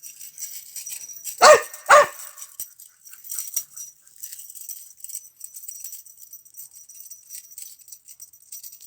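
Dog barking twice in quick succession, about a second and a half in.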